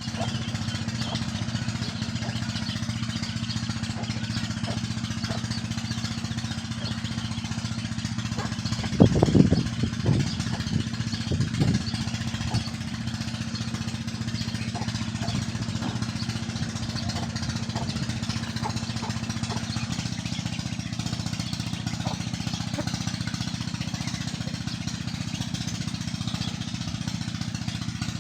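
A motor running steadily with a low, even hum that shifts slightly about twenty seconds in. A louder, brief run of irregular sounds comes about nine seconds in.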